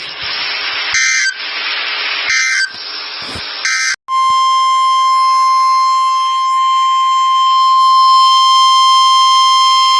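Emergency Alert System signalling: about four seconds of harsh bursts of digital SAME data, then, about four seconds in, the steady single-pitch National Weather Service attention tone (1050 Hz). The tone announces a new weather warning.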